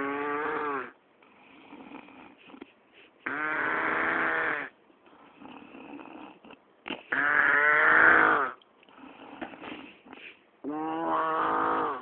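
A person snoring heavily: four long, loud snores about every three and a half seconds, each with a wavering droning pitch, and quiet breathing between them.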